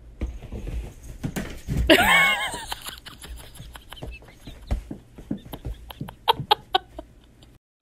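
A cat's drawn-out call with a bending pitch about two seconds in, followed near the end by a run of short, sharp sounds.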